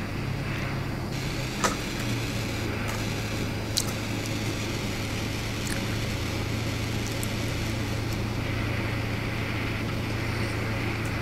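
Handheld gas torch burning steadily with an even hiss, its flame playing on a glass test tube. Two faint clicks come in the first few seconds.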